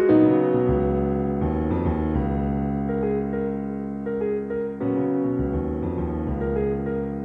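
Background piano music: a melody of separate notes over held low chords.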